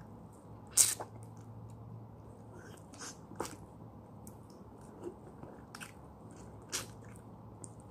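A person biting and chewing a lemon: irregular short wet smacks of mouth on fruit, the loudest about a second in.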